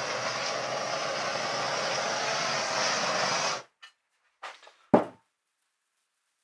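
Handheld butane soldering torch burning with a steady hiss while it heats a tinned lug terminal on a battery cable to solder it. The hiss cuts off suddenly a little over halfway through, followed by a few small handling noises and one sharp knock.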